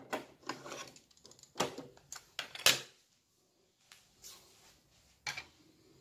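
Hitachi TRK-8240RM boombox's cassette deck keys and door clicking and clunking as they are worked by hand. There is a string of separate knocks in the first three seconds, the loudest about two and a half seconds in, and one more just after five seconds.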